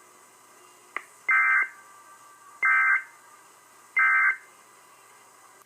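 Emergency Alert System end-of-message signal: three identical short bursts of SAME digital data tones, each a brief electronic squawk, about 1.3 seconds apart, marking the end of the alert. A faint click about a second in comes just before the first burst.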